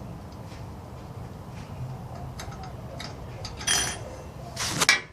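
Light metallic clicks and clinks of hand tools working a snap ring out of a 6HP19 transmission's clutch drum E. Two louder metal clatters come near the end.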